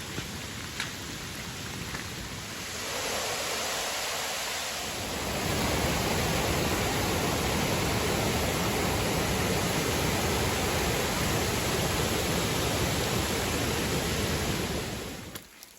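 Rushing water of a rain-swollen stream, a steady rush that gets louder about three seconds in and again about five seconds in, then drops away sharply near the end.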